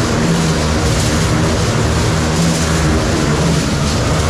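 Motorcycle engines running at high revs inside a steel-mesh Globe of Death stunt cage, a loud, steady engine drone.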